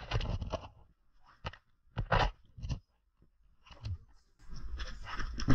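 Irregular crunching of footsteps and scuffling on dry leaves, twigs and loose stones, a few separate crunches and then almost continuous crunching near the end.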